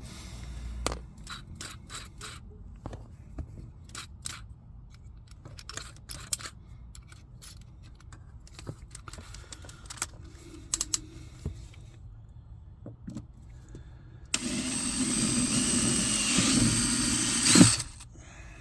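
Scattered clicks and knocks of parts and tools being handled, then about fourteen seconds in a power drill runs steadily for about three seconds and stops, pre-drilling a hole in the original kick panel to keep it from cracking.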